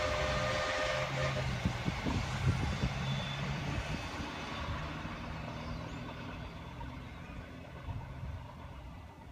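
Steam train running away into the distance, its low rumble fading steadily, with a brief steady tone in the first second or so.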